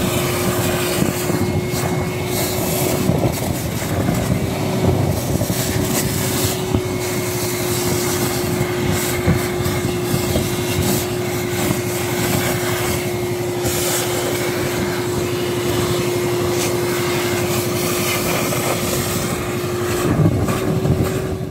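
Gutter vacuum running with a steady whine, its ribbed hose nozzle sucking up sand, grit and moss from the paving edges, with debris crackling as it is drawn through the hose.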